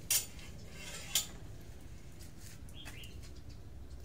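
Small bird chirping: two short sharp chirps in the first second or so, then a brief falling call about three seconds in, over a low steady background hum.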